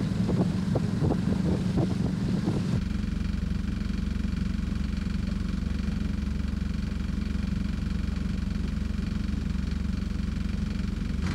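A sailboat's engine running steadily under way. About three seconds in, the sound changes abruptly to a steadier, deeper drone heard inside the cabin.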